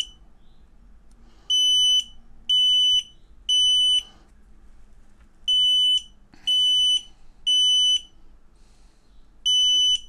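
X-Sense XS01-WT Wi-Fi smoke alarm sounding its alarm: loud, high-pitched half-second beeps in groups of three, with a pause of about a second and a half between groups. This is the standard three-beep evacuation pattern. Two full groups sound, and a third begins near the end.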